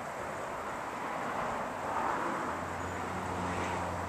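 Steady outdoor background noise of a back yard, with the low, even hum of a distant engine coming in about halfway through.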